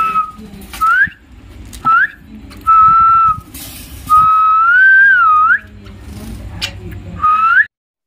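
A series of about six clear whistled notes: short whistles sliding upward, held level ones, and one long wavering whistle lasting about a second and a half midway.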